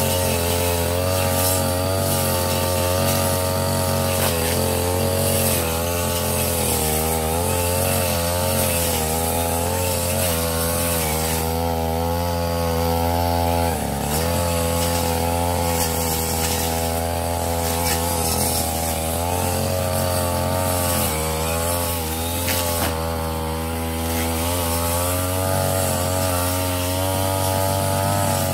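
Ogawa CC33 two-stroke brush cutter with a metal blade, running at high revs while cutting overgrown lemongrass. The engine pitch wavers up and down as the blade loads and frees, dipping briefly a few times.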